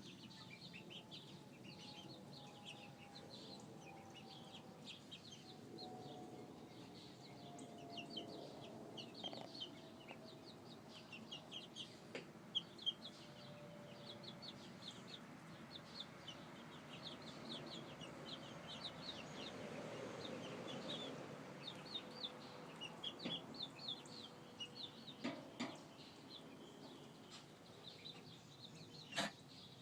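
Young chickens peeping in rapid, short, high chirps that continue without a break. Beneath them a faint steady drone slowly falls in pitch, and there are a couple of sharp clicks.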